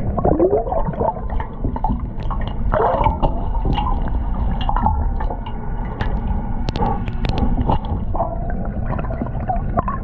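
Underwater sound heard through a GoPro housing: gurgling water and bubbles over a steady low rumble, broken by many sharp clicks and a few short swooping tones.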